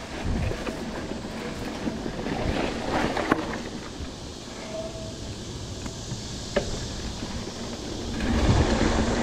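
Mountain bike riding over a dirt trail: tyres rolling on dirt and the bike rattling, with a few sharp clicks and knocks. About eight seconds in it gets louder and rougher as the tyres run onto concrete paver blocks.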